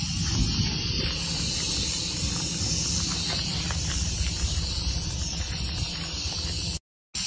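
Rattlesnake rattling its tail: a steady, high buzzing hiss over a low rumble. The sound cuts out for a moment near the end.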